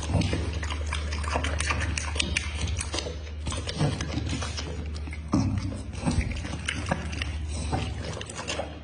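Dog chewing food with wet, open-mouthed smacking and licking its lips: rapid irregular clicks and slurps over a steady low hum.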